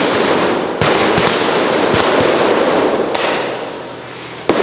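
Firecrackers going off, of the kind used by wildlife officers to drive a wild elephant away: several sharp bangs, each followed by a long noisy rumble that slowly dies down.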